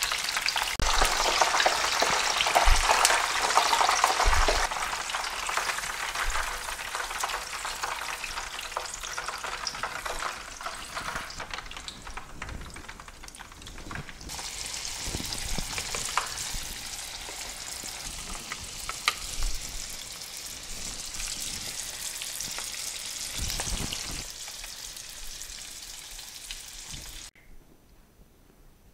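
Spring rolls deep-frying in about an inch and a half of cooking oil at about 350 degrees, sizzling steadily. The sizzling is louder for the first few seconds, then carries on more softly and cuts off suddenly near the end.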